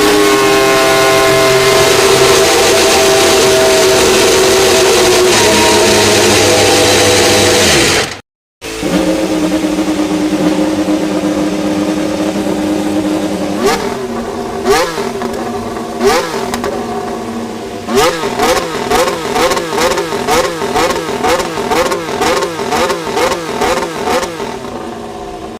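Formula 1 car's 1.6-litre turbocharged V6 hybrid engine at high, steady revs for about eight seconds, then, after a cut, another F1 engine running with occasional throttle blips that turn into a rapid run of rev blips, nearly two a second, in the last seven seconds.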